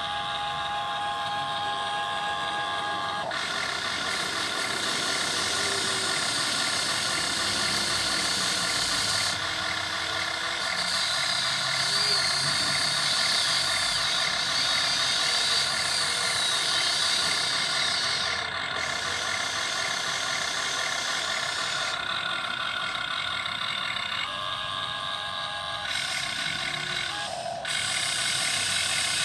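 Electric motors and gearboxes of a radio-controlled model excavator whining steadily, the whine shifting in pitch several times as it switches between movements.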